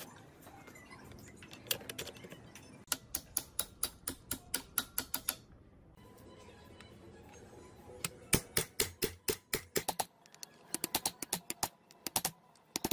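Quick runs of sharp metallic taps, a hammer driving a steel pivot pin into the foot pump's lever frame and cylinder bracket, about five strikes a second. One run comes a few seconds in, and two more follow after a short pause.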